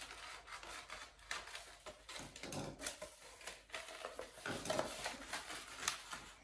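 Gift-wrapping paper rustling and crinkling in irregular short strokes as it is handled and folded around a present.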